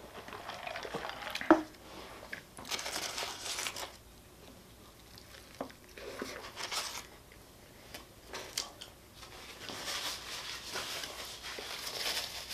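Close-up eating sounds: a foil-lined burger wrapper crinkling, then biting into and chewing a Wendy's Baconator bacon cheeseburger in several noisy patches. A sharp knock about a second and a half in is the loudest sound.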